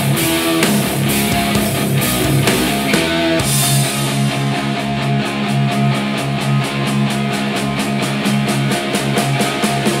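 Rock music played through a pair of Audioengine A2+ compact powered speakers and picked up by a microphone in the room. About a third of the way in it settles into a steady pulsing bass line under a fast, even beat.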